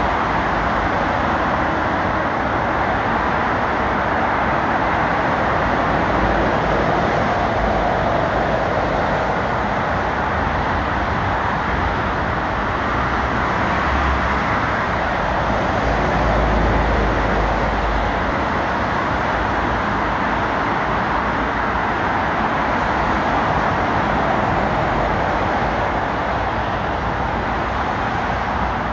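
Steady dual-carriageway traffic noise: tyre roar and engines of cars and lorries passing below. A deeper rumble swells about halfway through as an articulated lorry goes by.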